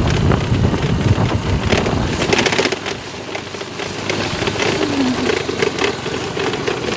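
A vehicle on the move, a heavy rumble for the first few seconds that then eases, with scattered clicks and rattles.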